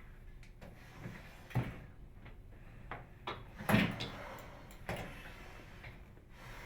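Clicks and knocks from a Frigidaire microwave oven's door being worked on its newly fitted upper hinge, about five sharp knocks, the loudest a little under four seconds in.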